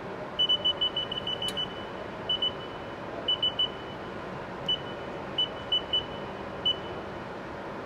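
Haas CNC control keypad beeping as keys are pressed to enter an MDI program: a quick run of about nine short, high, identical beeps near the start, then a few more in twos, threes and singles. A steady machine hum runs underneath.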